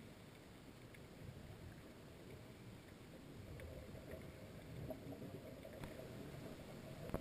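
Muffled underwater sound through a camera housing: a scuba diver's exhaled bubbles gurgling up from the regulator, heavier in the second half, with a few faint clicks.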